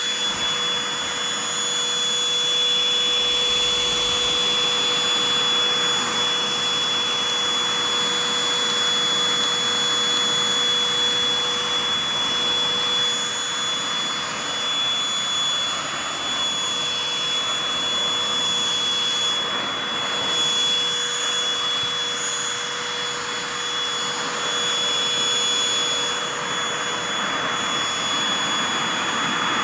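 Oraimo OHV-103 cordless handheld vacuum cleaner running continuously: a rush of air with a steady high whine, its level wavering a little as it works.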